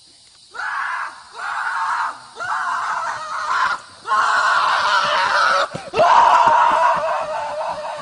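A horse crib-biting a fence post, gripping the top of the post in its teeth, lets out a series of five loud, drawn-out cries with short breaks between them; the later ones are longer.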